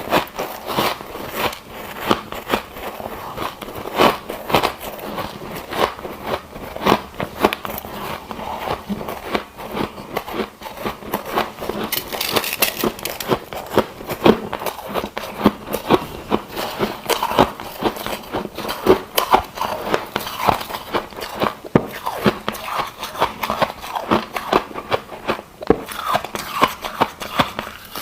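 Ice being chewed close to the microphone: a run of irregular sharp crunches and cracks, several a second.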